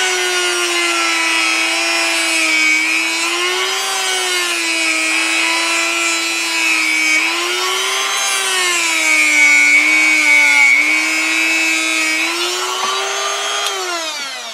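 Handheld rotary tool spinning a felt polishing wheel loaded with compound, buffing the pivot points of a sewing machine. It gives a steady high whine whose pitch wavers up and down throughout, then winds down and stops near the end.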